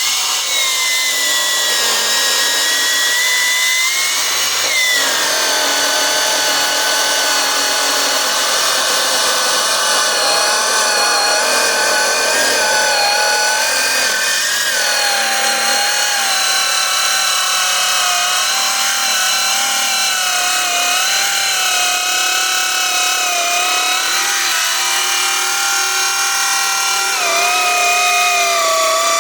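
Milwaukee M18 8-inch cordless metal-cutting circular saw running under load through 1-inch steel plate: a continuous high-pitched whine of the blade in the steel. Its pitch dips about five seconds in as the blade is pushed into the cut, then wavers for the rest of the cut.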